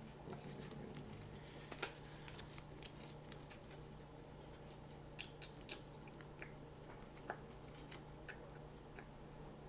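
Playing cards being handled on a tabletop: scattered light clicks and snaps as cards are picked up, flicked and laid down, over a steady low hum.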